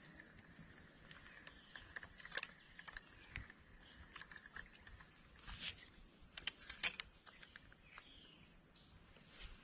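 Faint outdoor ambience with thin steady high tones in the background and scattered small clicks and rustles, the loudest around the middle.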